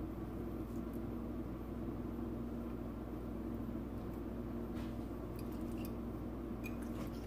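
Steady low hum of room tone, with a few faint clicks and taps from about five seconds in.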